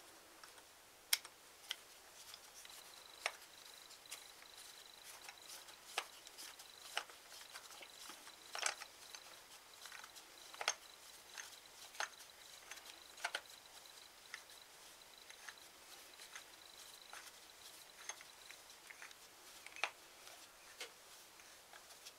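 Small, irregular metal clicks and scrapes of a hand screwdriver working a small screw into a steel joystick rocker bracket. A faint, steady high whine runs through the middle.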